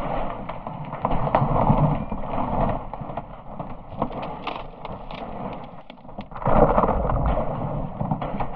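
Iceberg ice crashing and breaking up in the water: a continuous low rumble with many sharp cracks and pops. It eases off midway and swells again about six and a half seconds in.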